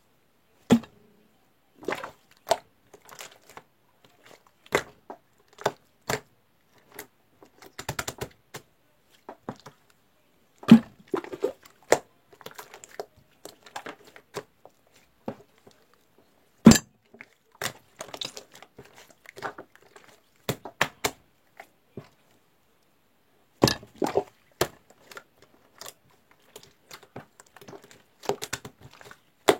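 Irregular sharp clicks and knocks with some crinkling, as of objects being handled, separated by short silences. The loudest knocks come about a second in, about eleven seconds in, around the middle and about twenty-four seconds in.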